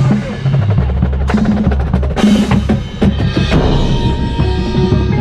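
Drum corps front ensemble playing: quick mallet and drum strokes over low bass drum tones, with two cymbal crashes. Near the end it settles into steady ringing mallet-keyboard notes.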